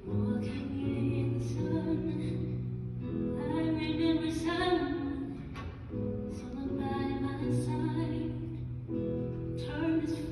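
Live musical-theatre song: a high singing voice holds long notes over the stage band, in phrases of about three seconds each.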